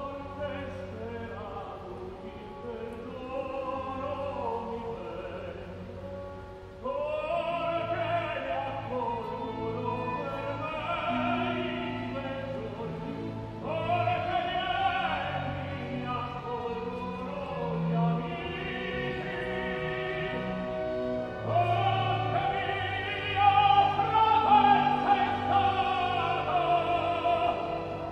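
Opera singing with orchestral accompaniment, voices holding long sung notes. It steps up in volume about seven seconds in and peaks with loud high notes near the end.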